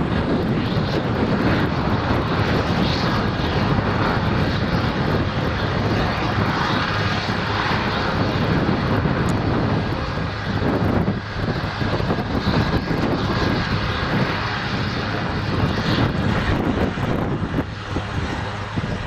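Eurocopter AS 332 Super Puma helicopter running close by at take-off: its twin turbine engines and main rotor make a dense, steady noise with a low hum underneath.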